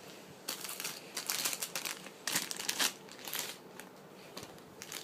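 Plastic packaging crinkling in a run of rough bursts as it is handled, dying down for the last second or so.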